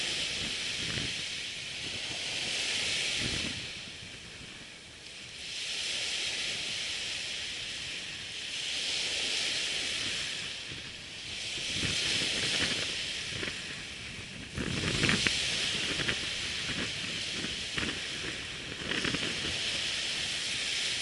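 Surf on a sandy beach: waves breaking and washing up the shore in a hissing noise that swells and fades every few seconds, with a few sharp knocks about three-quarters of the way through.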